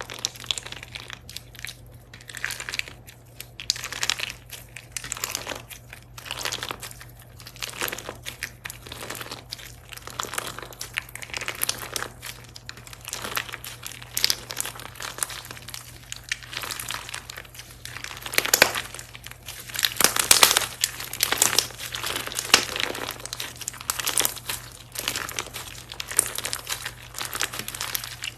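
Slime being squished and pressed by hand, a dense, irregular run of crackly, sticky pops and clicks that grows louder about two-thirds of the way through.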